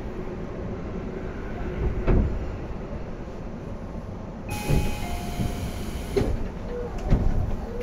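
Running sound heard inside a Tobu 10030-series electric commuter train: a steady rumble of wheels on rail, broken by four heavy clunks as the wheels cross rail joints or points. About halfway through comes a brief high hiss with a few short tones.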